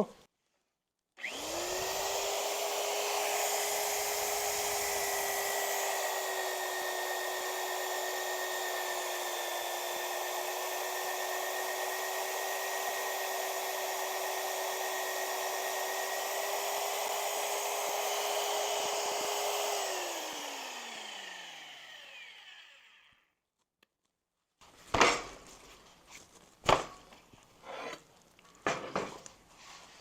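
Magnetic drill motor starting and running steadily under load as a large-hole cutter bores through steel, with a steady whine over a cutting hiss. It is switched off after about twenty seconds, and the whine falls as the drill spins down. A few sharp knocks and clicks follow near the end.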